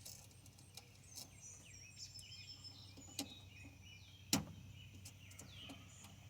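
Birds chirping over and over, with a sharp click about four seconds in and a fainter click about a second before it.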